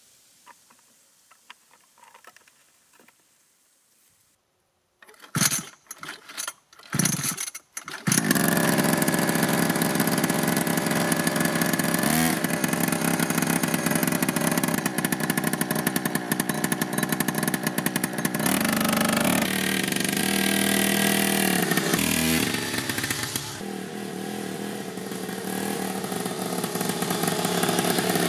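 A 49cc two-stroke pocket bike engine being started: a few short bursts as it fires and dies, then it catches about eight seconds in and runs steadily. Its pitch shifts with the throttle, it drops back about two-thirds of the way through, and it rises again near the end as the bike pulls away.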